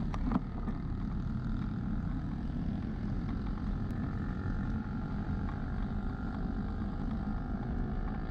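Wind rumble and tyre-on-road noise on an action camera's microphone while riding a road bicycle, steady throughout, with a couple of short clicks near the start.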